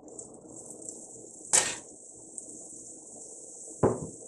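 Batter-dipped pitha frying in hot oil in a kadai: a steady high sizzle. Two sharp knocks cut through it, one about a second and a half in and one near the end.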